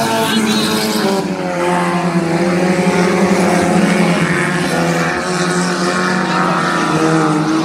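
Several four-cylinder stock race cars running hard, their engines rising and falling in pitch as they pass one after another.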